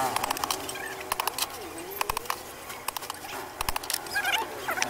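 Irregular light metal taps and clicks from a hammer and hand tools working on a Hino bus clutch disc while its friction lining is being replaced.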